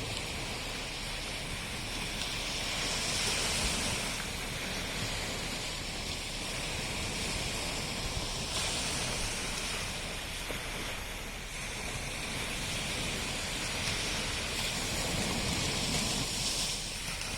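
Sea waves washing onto the shore: a steady rushing surf that swells louder a few times as waves come in.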